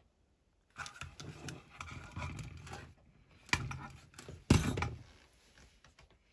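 A plastic smoke alarm and its wiring being handled: rustling, scraping and clicks from about a second in, with two sharp knocks about a second apart near the middle. No alarm sounds.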